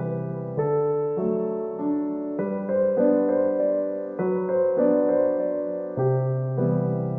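Background music played on an electric piano, with notes and chords changing in a steady rhythm about every half second.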